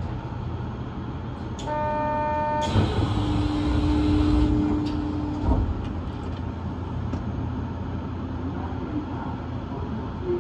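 New Tram automated guideway train standing at a station platform with a steady low hum. About two seconds in an electronic beep sounds for about a second, followed by a lower buzzer tone of about three seconds that ends in a thump.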